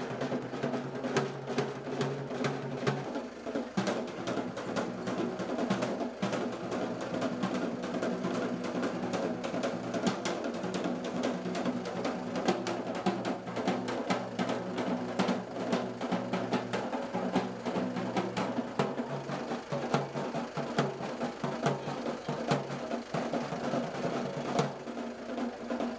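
Drums beaten in a fast, continuous rhythm, with a steady low drone underneath that changes pitch about nineteen seconds in.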